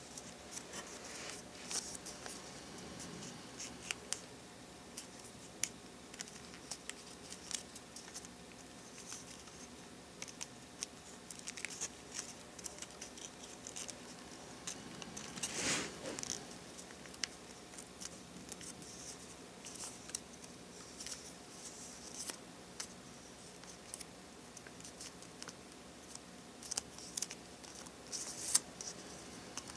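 Origami paper being folded and creased by hand: scattered soft crackles, ticks and rustles as the paper is pinched and bent, with one louder rustle about halfway through.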